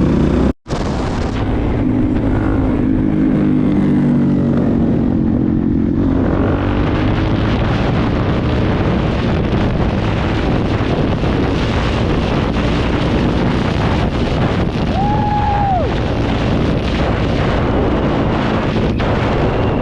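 Supermoto motorcycle engine running at low speed for the first few seconds, then riding on under load with heavy wind noise on the microphone.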